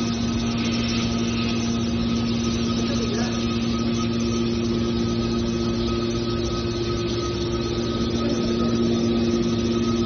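Hydraulic power unit of a scrap metal baler running steadily as its rams move the press lids: a constant droning hum with a higher steady whine above it, getting slightly louder near the end.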